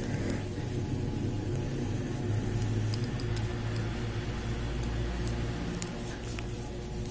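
A steady low machine hum, like a fan or motor running, with a few faint ticks over it.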